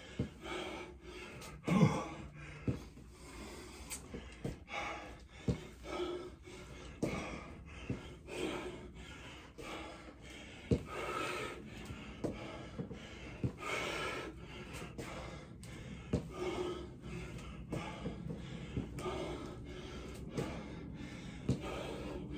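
A man breathing hard and gasping from exertion during a set of lunges, with scattered short knocks and thumps throughout.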